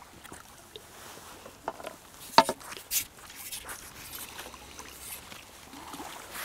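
Small skimmer bream splashing at the surface as it is drawn in and scooped into a landing net, over light lapping water. A few sudden sharp sounds stand out, the loudest about two and a half seconds in and another at three seconds.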